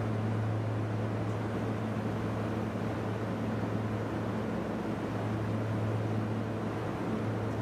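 Lastochka electric multiple unit standing at a platform, its onboard equipment giving a steady low hum with a hiss over it.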